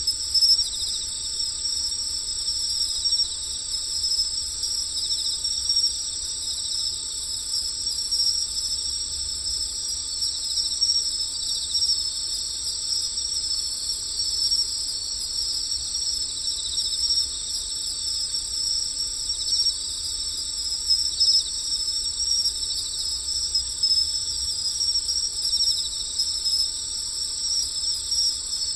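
Steady, high-pitched chorus of night insects trilling without pause, in two bands of pitch.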